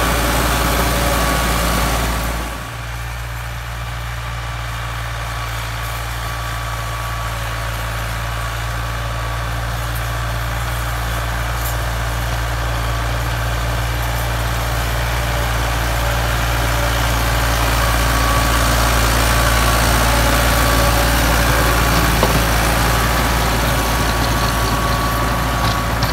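Ford 4610 tractor's three-cylinder diesel engine running steadily under load while pulling a rotavator through soil. The sound drops suddenly about two and a half seconds in, then grows gradually louder as the tractor draws near.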